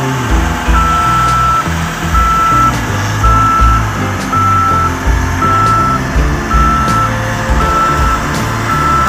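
Reversing alarm of a Caterpillar single-drum vibratory roller beeping steadily, about once a second, as the machine backs up, over the running diesel engine.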